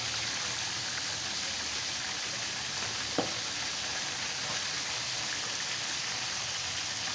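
Pomfret frying in hot oil in a baking tray, a steady sizzle as it is cooked until dry, with a single short click about three seconds in.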